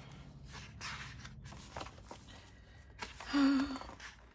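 Paper rustling and soft handling sounds as a K-pop album photo book is opened and its pages turned, with a brief wavering vocal sound, like a short 'ooh', a little past three seconds in.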